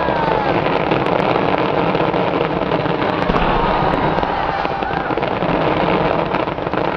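Fireworks going off in a dense, continuous crackling barrage.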